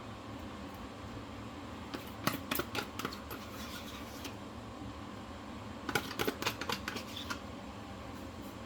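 A utensil clicking and scraping against a container as mascarpone is spooned into the mixing bowl, in two flurries of quick clicks about two seconds in and again about six seconds in.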